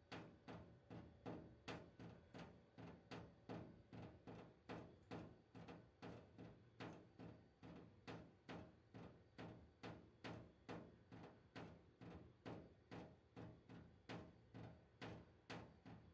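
Water dripping from a kitchen tap into a stainless-steel sink, each drop a faint plink, in a steady run of about three drops a second.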